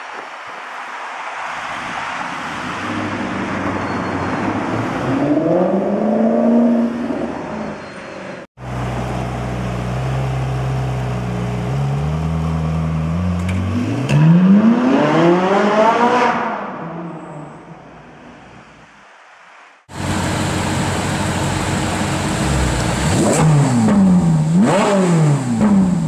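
Supercar engines in three quick cuts. First a car accelerates with the revs rising. Then a Ferrari 458 Italia's V8 runs low, climbs through a long rising rev and fades away. Near the end, another 458 Italia's V8 is revved in sharp blips, the pitch shooting up and dropping back twice.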